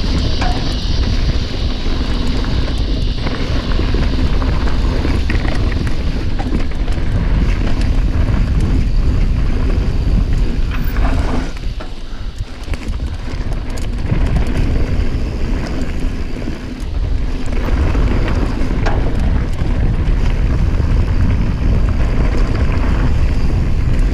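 Wind buffeting the action camera's microphone as a mountain bike rolls fast down dirt singletrack, with tyre rumble and small rattles from the bike over the rough ground. The rush eases briefly about halfway through.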